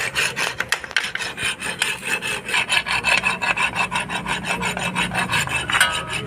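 Motorcycle drum-brake shoes being rubbed down by hand with an abrasive in rapid back-and-forth scraping strokes, roughening the glazed lining before the wheel is refitted.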